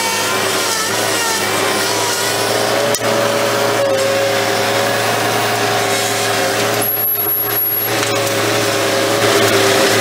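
New Holland skid steer loader's engine running steadily as it digs out a bush with its bucket.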